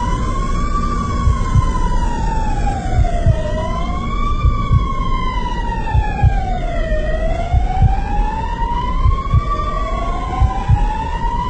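Emergency vehicle siren wailing, its pitch sliding slowly up and down with each sweep lasting a few seconds, over a low vehicle rumble with irregular thumps.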